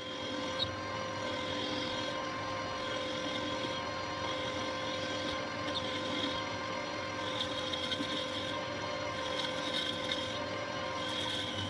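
Manual metal lathe running steadily while a boring cut roughs out the centre hole of a large disc blank, with a higher cutting hiss that comes and goes.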